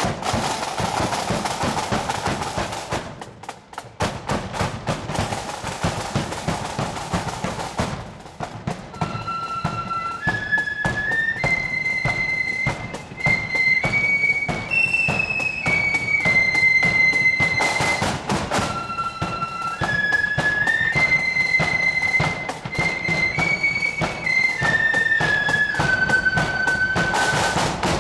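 Marching flute band. For the first eight seconds only the snare and bass drums play. Then the flutes come in with a stepping tune over steady drum beats, with bursts of snare rolls near eighteen seconds and near the end.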